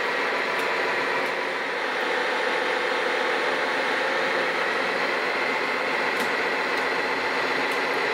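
Radio-controlled Liebherr PR 741 crawler dozer model driving, a steady mechanical running drone of its drive.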